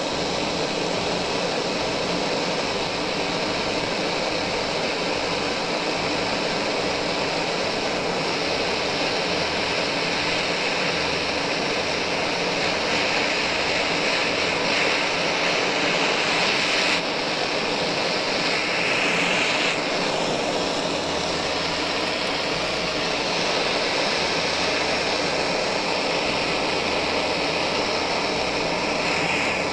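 Handheld gas cartridge blowtorch burning steadily with a continuous rushing hiss, its flame heating a crimped copper cable lug so that solder melts into it.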